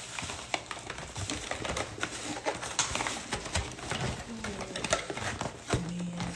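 Light, irregular clicks and taps of small objects and packaging being handled, with brief faint voices in the background.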